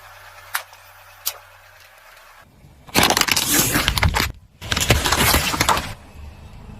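Loud crunching and cracking as a car tyre rolls over and crushes brittle objects, in two bursts of about a second each with a short break between, after a couple of faint clicks.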